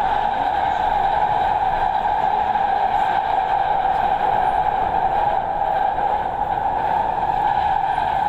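Doha Metro train running at speed, heard from inside the carriage: a steady, even hum and rumble with no change in pace.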